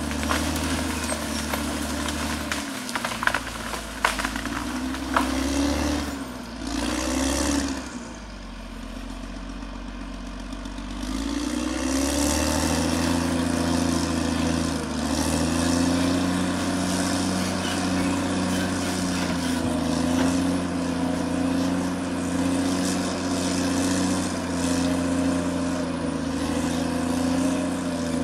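Caterpillar D6R XL bulldozer's diesel engine running under load, its pitch rising and falling over the first several seconds, with a few sharp knocks. It drops to a quieter, lower run about eight seconds in, then revs back up about eleven seconds in and holds a steady working note.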